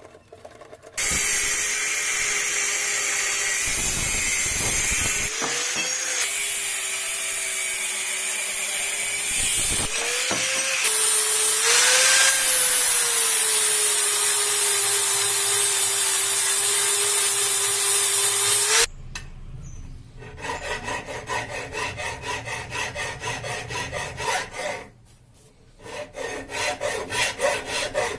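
Angle grinder running under load on steel angle for about eighteen seconds, a loud grinding hiss over the motor's tone, which sags and recovers twice. It then stops, and rhythmic hand strokes on metal follow, about two a second, with a short pause.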